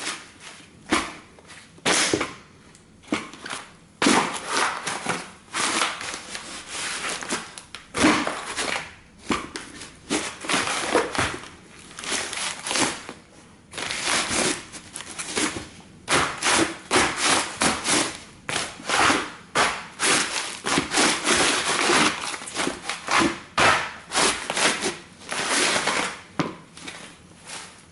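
Thin printed tin from a toy car crumpling and crackling under the thick rubber soles of Altercore Ranger leather combat boots as they are pressed and ground down, a dense run of sharp crackles and creaks with heavier treads on a wooden board.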